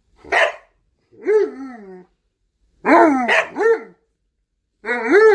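A northern-breed dog 'talking back' with a short rough bark followed by a run of wavering, rising-and-falling howl-like 'woo' calls: one, then two or three quick ones, then a longer call starting near the end.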